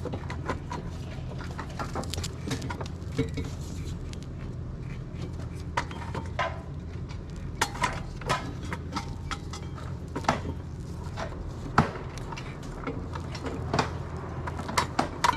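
Scattered metallic clicks, clinks and knocks of motorcycle parts being handled as a rear wheel and drive belt are fitted, the sharpest knocks around the middle, over a steady low hum.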